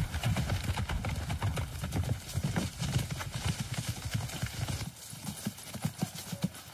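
Horse hooves clip-clopping in a dense run of knocks over a deep rumble. About five seconds in the rumble drops away suddenly and lighter hoof clops carry on.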